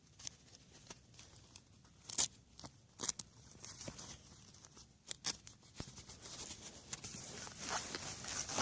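Faint rustling with a few scattered sharp clicks and scuffs: work gloves being pulled on and handled. The rustling grows louder toward the end.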